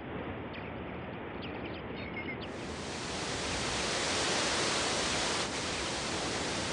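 Artificial rock waterfall pouring into a garden pond: a steady rush of falling water that grows louder about three seconds in.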